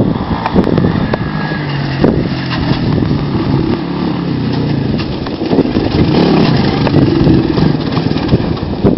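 Four-wheeler (ATV) engine running, its note wavering up and down and growing a little louder from about halfway through, with wind on the microphone.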